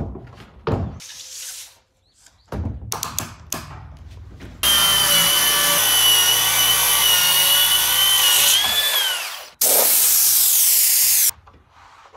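Cordless circular saw cutting along a softwood panel: a loud, steady high whine with the rasp of the blade in the wood for about four seconds, then the pitch drops as the blade winds down, followed by a second loud burst of cutting. Wooden knocks and clatter of boards being handled and set down come before the cut and near the end.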